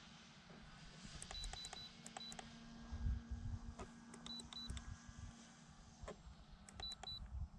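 Short, high electronic beeps with clicks, in three quick groups of two to four, typical of an RC transmitter's trim or switch beeps.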